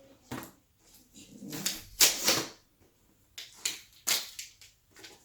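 Cardboard packaging being pulled and cut open by hand: a series of short, sharp rustling and scraping sounds, the loudest about two seconds in.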